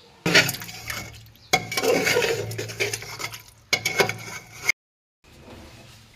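Dishes and a metal spoon clattering and scraping in three busy bursts full of clinks, cut off abruptly a little before the end.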